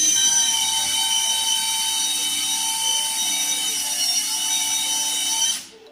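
Bosch GSB 120-LI cordless drill/driver running at steady speed with a high whine as a thin bit drills into a concrete block. It cuts off suddenly near the end.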